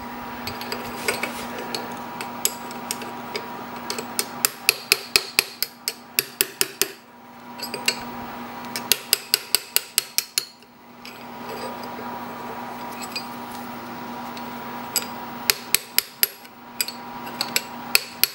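Brass drift tapped with a hammer against the locknut of a Gorton 9J milling-machine spindle to tighten it down: quick runs of light, sharp metallic taps, several a second, broken by short pauses.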